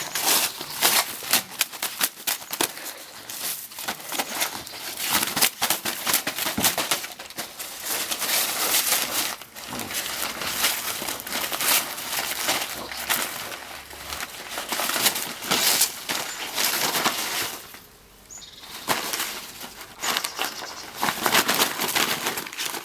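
Gift wrapping paper crackling, crumpling and tearing as a Labrador retriever rips open a present, in irregular bursts with a short lull about eighteen seconds in.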